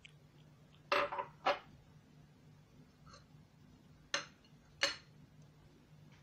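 Four short clinks of kitchen dishware and utensils being handled on a counter, in two pairs: one about a second in and one about four seconds in. A faint steady hum runs underneath.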